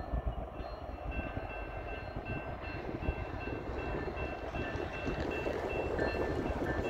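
Approaching freight train with Union Pacific diesel locomotives leading, a steady low rumble that grows slowly louder. A faint high tone pulses on and off throughout.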